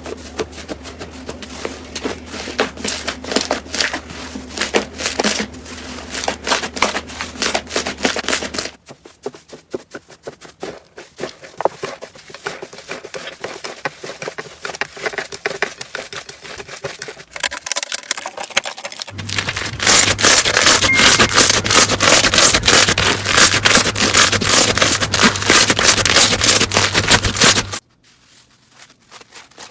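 Slime being squeezed and pressed by hand, a dense run of small crackling and popping clicks. It quietens about nine seconds in, becomes loud and dense again a little after halfway, and stops near the end.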